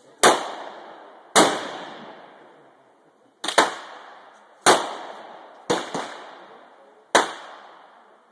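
Six shots from a .50-calibre Barrett semi-automatic rifle, mostly about a second apart with one longer pause after the second shot. Each crack is followed by a long echo that fades out.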